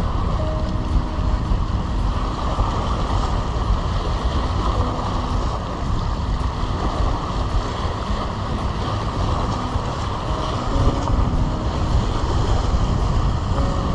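Wind buffeting the microphone over sea waves washing against the seawall rocks: a steady rushing noise with a low rumble.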